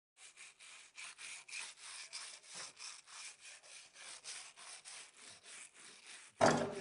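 Hand sawing of wood: faint, quick, even strokes, about four a second. Near the end a much louder knock and clatter cuts in.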